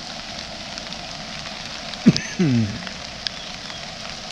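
Steady rain falling, an even hiss with scattered sharp drop clicks. About two seconds in, two short low voice-like sounds that fall in pitch stand out as the loudest moment.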